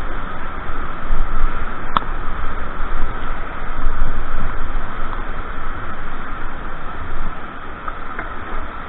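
Loud, steady rush of white water pouring through a river weir, heard up close from the turbulent outflow, with water buffeting the microphone. A single sharp knock comes about two seconds in.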